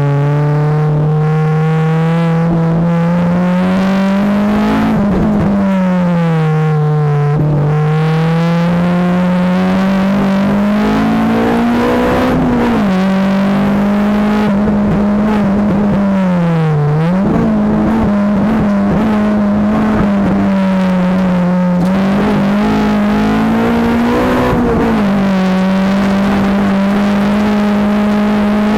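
Honda Accord Type R's 2.2-litre VTEC four-cylinder engine at high revs on track, heard from inside the cabin. Its pitch climbs and drops repeatedly with gear changes, and near the middle it dips sharply and climbs again.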